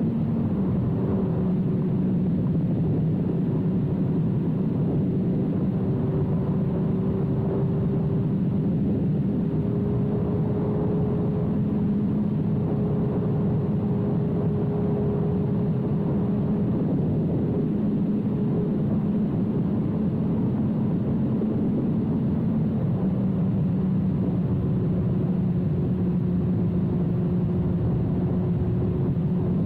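2006 Suzuki GSX-R1000's inline-four engine running at a steady cruise through a full carbon/titanium Yoshimura exhaust, its pitch holding nearly even with small rises and dips, under a haze of wind noise.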